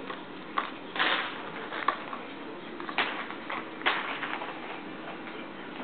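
Plastic ping pong balls clattering and rattling against each other in several short bursts, as ferrets and a hedgehog push through a pile of them.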